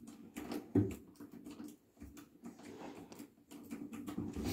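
Hand screwdriver turning a screw into a chipboard furniture panel: small irregular scraping clicks and creaks, with one louder knock about a second in.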